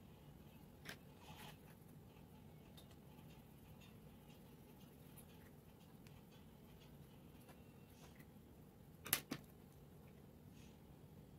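Near silence with faint scratches of a coloured pencil shading on notebook paper. About nine seconds in comes a sharp double click as a pencil is set down on the wooden table.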